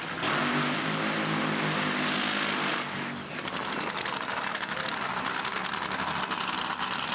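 Drag race car engine running very loud, as in a burnout: a full-throttle roar for about the first three seconds, then a rapid, rough, pulsing run that goes on to the end.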